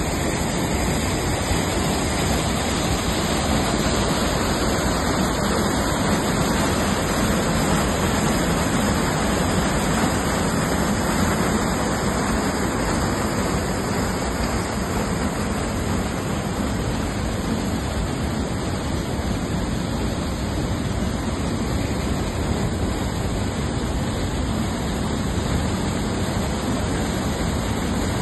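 Fast mountain river rushing over rocky rapids and small cascades: a steady, unbroken rush of white water.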